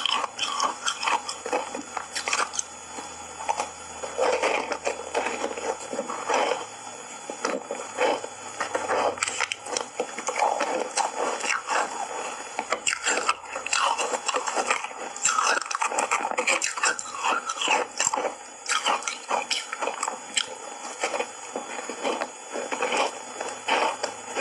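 Ice bars coated in matcha powder being bitten and chewed: an irregular run of crisp crunches and cracks.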